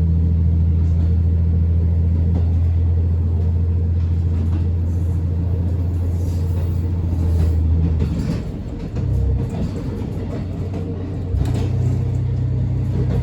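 KiHa 54 diesel railcar's engine running under power with a steady low drone. About eight seconds in the note drops away briefly, then a steady drone at a slightly different pitch returns near the end.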